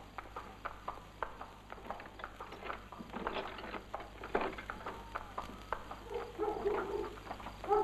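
Irregular clip-clop of horse hooves on hard ground. From about six seconds in come a few short pitched calls.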